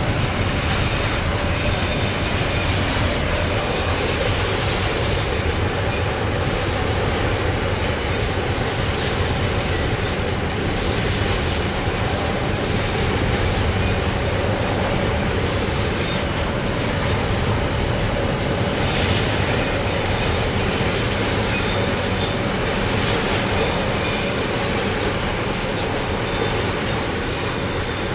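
Container freight train wagons rolling past on steel rails with a steady rumble of wheels and track. Thin, high-pitched wheel squeal rises over it in the first few seconds and again about two-thirds of the way through.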